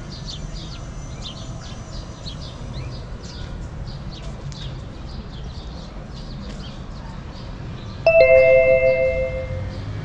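Steady street background with faint high chirping, and about eight seconds in a single loud bell-like ding of a few clear tones that rings out and fades over about a second and a half.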